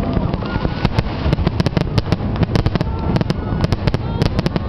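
Fireworks finale: a dense, rapid run of sharp cracks and bangs, several a second, over a continuous low rumble.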